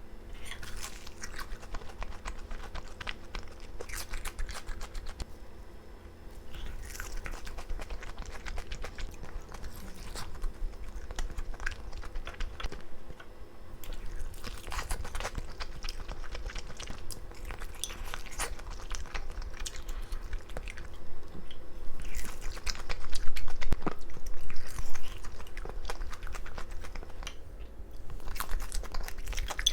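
Close-up chewing and biting of fried chicken coated in spicy soy and taco-mayo sauces, in irregular bites and chews that are loudest a little past the middle.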